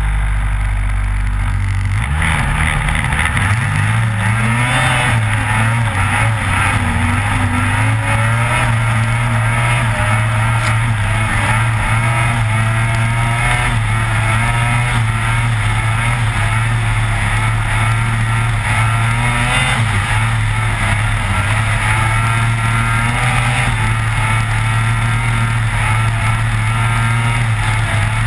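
Lynx Rave RE 600 snowmobile's two-stroke engine running. It stays low for about two seconds, then revs up, and carries on at speed with its pitch wavering up and down over the bumpy trail.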